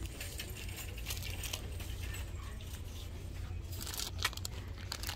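Plastic candy-bar wrappers crinkling and rustling as bars are handled and pulled from a wire display bin, with scattered light clicks and a steady low hum underneath. One sharper click comes a little after four seconds in.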